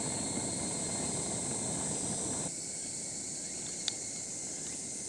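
Portable gas cartridge stove burner hissing steadily under a long-handled hot sandwich iron. It drops quieter about halfway through, under a steady high drone of summer insects, with one light click near the end.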